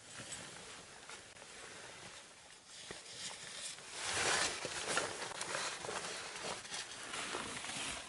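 Irregular scraping, crunching and knocking of a mixed climber's crampons and ice tools on rock and snow. A louder rustle and scrape joins in about four seconds in.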